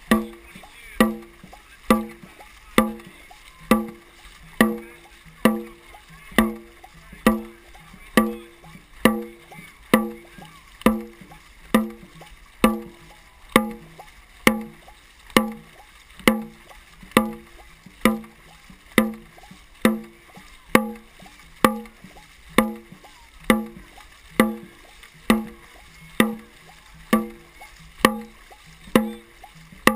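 Dragon boat drum beaten at a steady rhythm of about one beat a second, setting the paddlers' stroke rate, with paddles splashing in the water.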